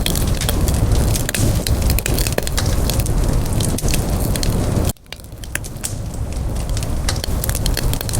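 Wood fire crackling: many sharp pops and snaps over a low, steady rumble of burning. About five seconds in the sound drops out abruptly, then swells back over the next couple of seconds.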